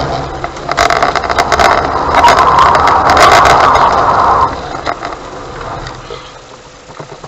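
Car engine and road noise heard from inside a car being driven around a cone-marked autotest course; loud for the first four seconds or so, then dying away.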